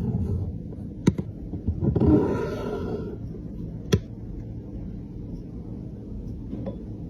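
Two sharp clicks about three seconds apart, with a short rustling scrape between them, over a steady low rumble: small objects being handled.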